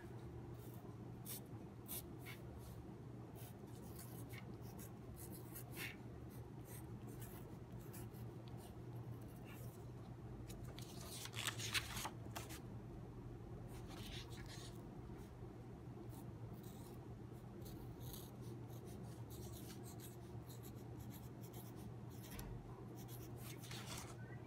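Pencil writing on paper: a run of short, faint scratchy strokes. About 11 seconds in the sheet is lifted and handled, giving a louder paper rustle.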